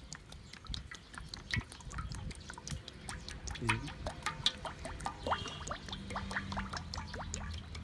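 Cooking oil pouring from a plastic bottle in a thin stream into a large metal wok, the stream splashing and dripping into the oil already in the pan in quick irregular ticks.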